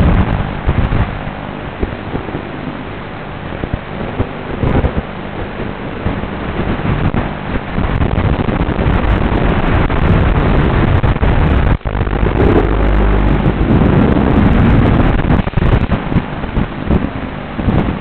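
FPV quadcopter's motors and propellers in flight, heard through its own onboard camera microphone as a loud rushing noise mixed with wind buffeting, swelling and easing as the throttle changes. The sound drops out for an instant just before the twelfth second.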